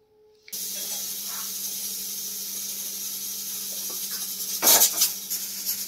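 Steady hiss of a lit kitchen gas stove burner, starting about half a second in, with a low hum underneath. A short, louder clatter of cookware comes about three-quarters of the way in.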